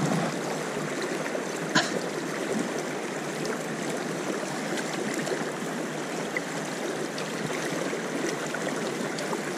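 Steady rush of a river's flowing water, with a single short click about two seconds in.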